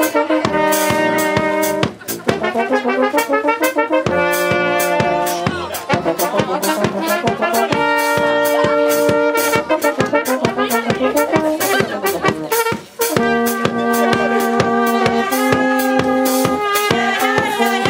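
Moravian village brass band playing a folk dance tune, with tuba and trumpets holding sustained melody notes over a steady beat.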